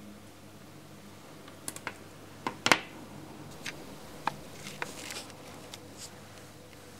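Handling clicks and taps as multimeter test probes and a stack of coins and zinc washers are knocked together by hand. A scatter of sharp clicks, the loudest about two and a half seconds in.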